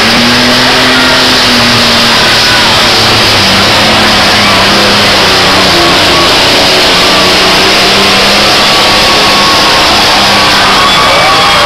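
Modified pulling tractor's engine running flat out, loud and steady, as it drags a weight-transfer sled down a dirt pulling track. About ten seconds in, crowd cheering and whistling start over it.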